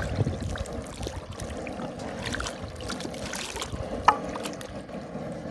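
A wooden paddle stirring and sloshing seasoned chicken stock in a five-gallon cast iron jambalaya pot, with a sharp knock about four seconds in.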